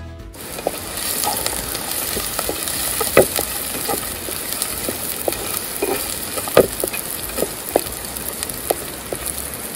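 Chopped onion and curry leaves sizzling in hot oil in a clay pot, a steady hiss with scattered pops, the loudest about three and six and a half seconds in. The clay pot keeps the tempering from crackling hard.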